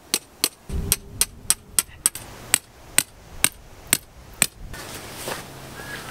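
About a dozen sharp, evenly spaced strikes, two to three a second, like hammer blows, stopping about four and a half seconds in. A steady low hum and a rushing noise follow.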